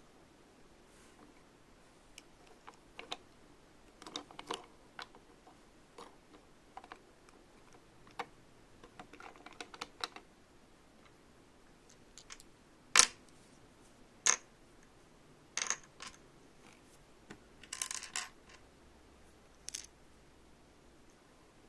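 Small plastic toy pieces clicking and tapping as they are handled and set down, in scattered irregular clicks and short clusters, with two sharper clicks a little past the middle.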